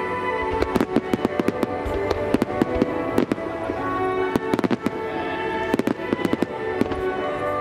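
Aerial fireworks bursting in a rapid string of sharp bangs and crackles, several a second at times, over sustained music playing with the display.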